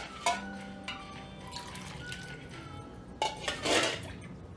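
Soft background music with held notes. About three seconds in comes a short splash of water poured into a pot of chicken curry.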